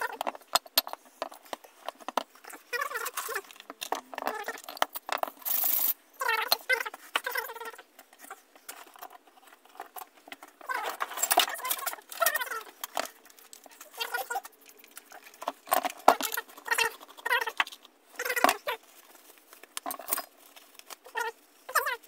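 Metal parts of an old hand drill being handled and set down on a workbench: scattered clicks and clinks, with several short wavering squeaks in between.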